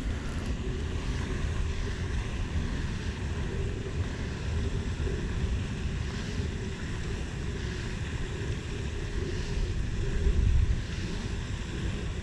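Wind buffeting the microphone: a steady low rumble with a rushing hiss above it, gusting a little louder about ten seconds in.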